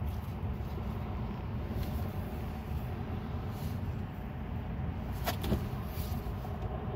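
A low steady rumble, with two light sharp clicks about five seconds in as the ABS wheel-speed sensor is pushed into its hole in the steering knuckle.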